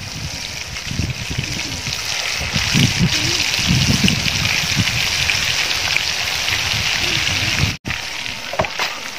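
Marinated quail pieces deep-frying in hot oil, a steady sizzle and bubbling as more pieces are dropped into the pot. The sound cuts out for an instant near the end.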